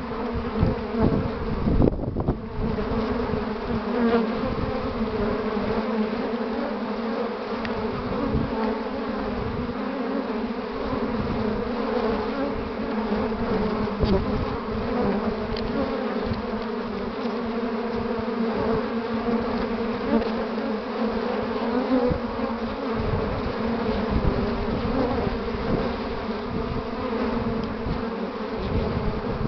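Honeybees at a hive entrance giving a steady, dense buzzing hum of many wings: heavy foraging traffic, with bees flying in and landing with pollen loads from willow.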